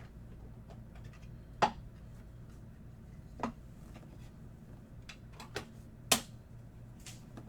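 Trading cards and their plastic holders being handled on a table: several sharp taps and clicks at uneven gaps, the loudest about six seconds in, over a steady low electrical hum.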